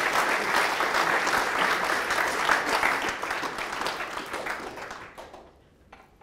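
Audience applauding: a roomful of people clapping, fading out about five seconds in.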